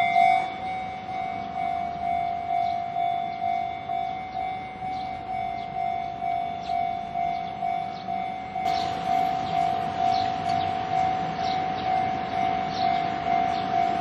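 Japanese level-crossing warning alarm ringing its 'kan-kan' bell tone, repeating steadily at a little under two strikes a second: the crossing is closed for an approaching train.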